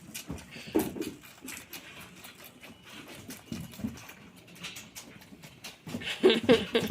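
Goat kids bleating while being bottle-fed milk, with a short call about a second in and louder, wavering bleats near the end, among scattered clicks and knocks.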